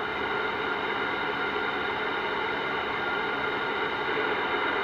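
CB radio receiver putting out steady static hiss with a buzz of steady tones through it, an open channel with no voice on it.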